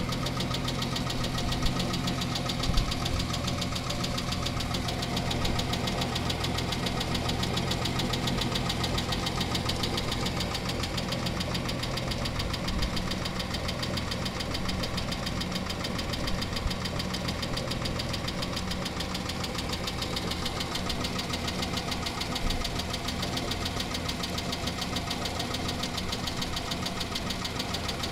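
Chrysler 300M's 3.5 L V6 engine running steadily with a rapid, even knock, a sign of an internal fault the owner cannot place. A few louder knocks stand out briefly.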